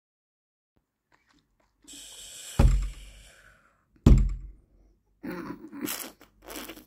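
Dubbed sound effects: a hiss leading into a deep boom, then a second deep boom about a second and a half later. Near the end come three short, harsh, noisy bursts.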